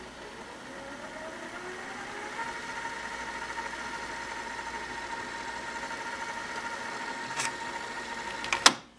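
Toshiba D-VR7 VCR fast-winding a VHS tape: a motor whine that rises in pitch over the first couple of seconds as the reels speed up, then holds steady. Near the end it stops with a loud mechanical clunk from the tape transport.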